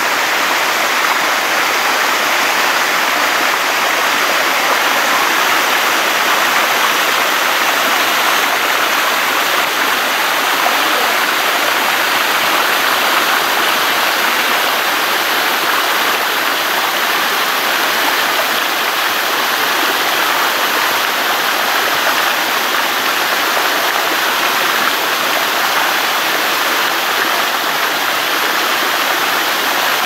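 Waterfall water rushing steadily as it cascades in shallow sheets over rock.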